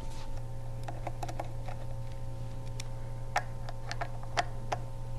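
Light, irregular clicks and taps of a hand tool and small metal parts being handled during disassembly of a sewing machine's solenoid assembly, about a dozen over a few seconds, over a steady low hum.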